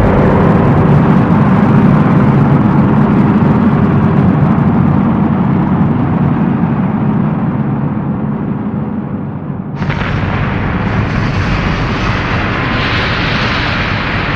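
Volcanic eruption sound effect: a loud, continuous deep rumble. About ten seconds in, a harsher hissing rush cuts in abruptly, and it swells again near the end.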